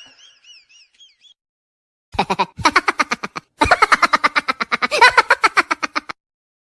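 Laughter in a rapid staccato cackle, about nine pulses a second, in two long runs starting about two seconds in. Before them comes a brief faint high warbling squeak.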